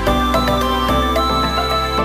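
Background music: a steady, mellow instrumental tune.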